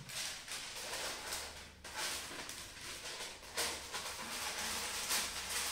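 A sheet of paper rustling and crinkling as it is pressed into an air fryer basket, with light knocks of handling.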